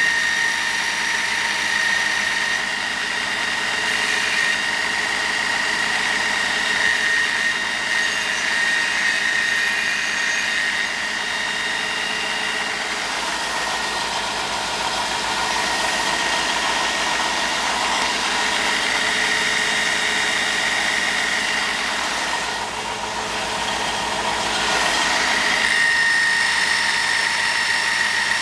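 Belt grinder running with a coil-spring steel punch blank pressed against the abrasive belt, grinding it to length. A steady high whine from the belt and motor over the hiss of the grinding.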